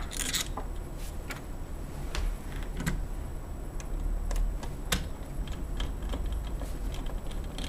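Irregular light clicks and taps of metal lever-set lock hardware being handled and fitted together as the back half of the lever set goes onto the door.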